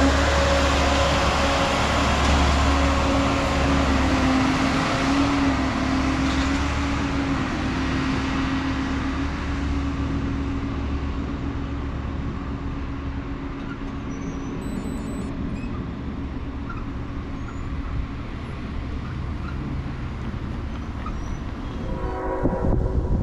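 Harsco track maintenance machine running along the rails, its diesel engine droning steadily over wheel-on-rail rumble. The sound fades gradually over the first half as it moves away, then stays at a lower rumble.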